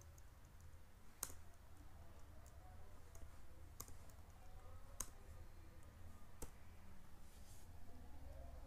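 Faint, sharp computer clicks from keyboard keys and a mouse while a form is filled in: four louder clicks spread a second or more apart, with a few fainter ticks between them, over a low steady hum.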